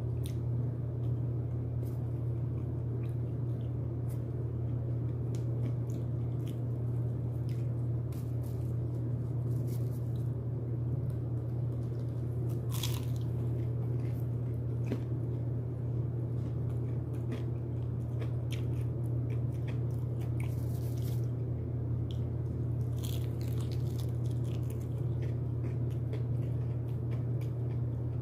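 A person eating crispy broasted (pressure-fried) chicken close to the microphone, with scattered bites, crunches and chewing. A steady low hum runs underneath.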